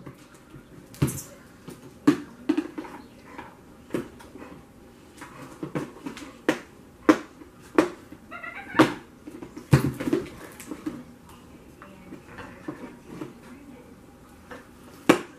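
Cardboard toy box and its plastic packaging being handled and worked open by hand: irregular sharp clicks, taps and crackles, a dozen or so across the stretch, with short pauses between.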